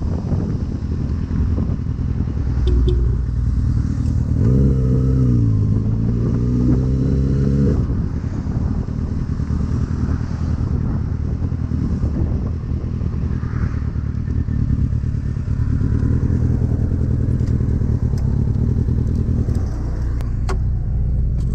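Kawasaki Ninja ZX-6R's inline-four engine running under the rider's seat, mixed with road and wind noise. About four seconds in, the engine note dips and then climbs steadily for a few seconds as the bike accelerates, before settling back under the road noise.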